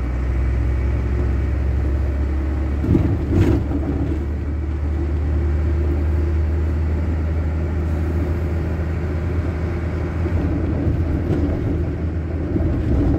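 Heavy truck's diesel engine and road noise heard from inside the cab while driving: a steady low drone. Two brief knocks about three seconds in.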